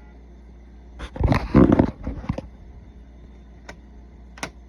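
Plastic magnetic letters and the toy being handled: a loud clattering burst lasting about a second, then two sharp clicks, as a letter is taken out of the reader and the next one is fitted.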